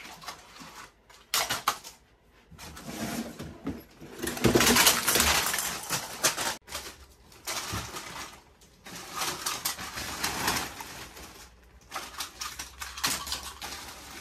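Plastic bags of small plastic fast-food toys rustling, crinkling and clattering in uneven bursts as they are dug through and shifted around a large pile. The handling is loudest about four to six seconds in.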